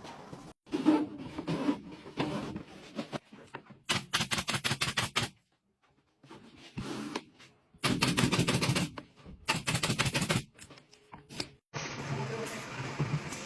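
Automated production-line machinery clattering in quick mechanical clicks, several a second, in short stretches that cut off abruptly, ending on a steadier machine hum.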